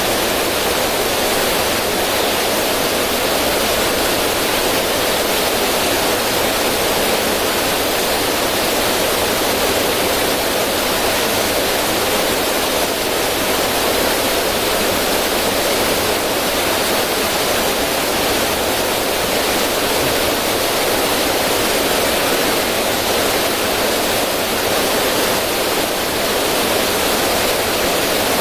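River current rushing over rocks and splashing down a small cascade, a steady full rush of water with no changes.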